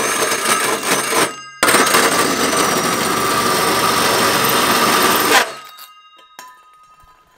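Cordless drill driving a large-diameter hole saw through the VW T6's sheet-steel body panel: a loud, steady grating cut with a high motor whine, easing off briefly about a second and a half in. The cutting stops suddenly about five seconds in as the saw goes through, and a faint metallic ring fades away after it.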